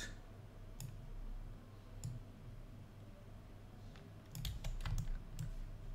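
Faint computer mouse clicks and keyboard taps: single clicks about one second and two seconds in, then a quick run of several clicks and keystrokes from about four to five and a half seconds in, over a faint steady low hum.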